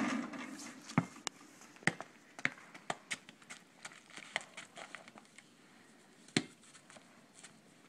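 A basketball strikes the driveway hoop with a hit and about a second of low ringing, then bounces and is dribbled on the hard asphalt in a string of separate sharp thumps, the last of them near the end the loudest.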